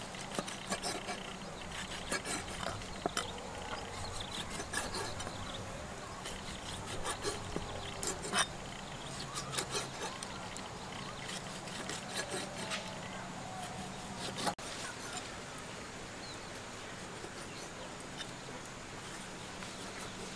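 Kitchen knife chopping octopus on a thick wooden chopping block: a run of irregular knocks as the blade strikes the wood. The knocks stop about fourteen seconds in, leaving a faint steady background.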